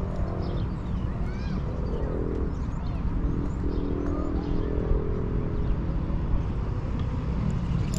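Outdoor ambience: a steady low rumble with birds chirping at intervals and a faint intermittent hum.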